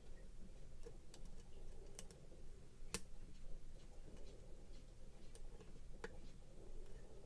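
Faint, irregular clicks of a lock pick probing and lifting the pins of a pin-tumbler challenge lock during single-pin picking, with one sharper click about three seconds in and another about six seconds in.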